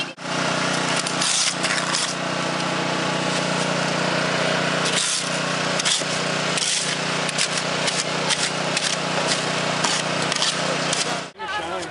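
A small engine running steadily with a constant low hum, under repeated scraping strokes of a hoe and shovels working wet concrete in steel wheelbarrows. Both cut off suddenly shortly before the end.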